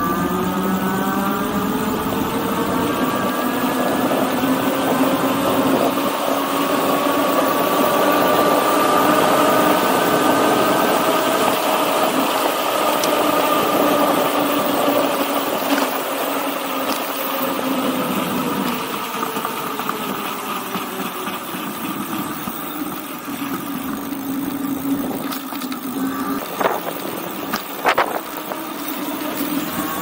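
E-bike's 2000 W rear hub motor whining under power, its pitch rising over about ten seconds as the bike speeds up and then slowly falling as it slows, over a steady rush of wind and road noise. A couple of sharp clicks near the end.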